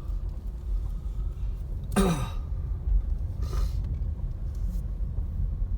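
Car driving slowly over a rough dirt road, heard from inside the cabin: a steady low rumble of engine and tyres. A short grunt falls in pitch about two seconds in, and a breathy exhale follows about a second and a half later.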